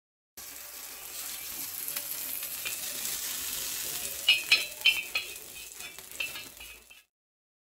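Oil sizzling on a hot tawa as a theple fries, with a quick run of sharp clicks about four to five seconds in; the sizzle cuts off abruptly near the end.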